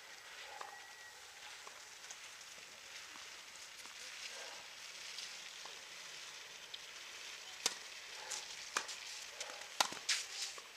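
Steady outdoor hiss with a few sharp tennis-ball knocks, a single one a little past halfway and a quick cluster near the end.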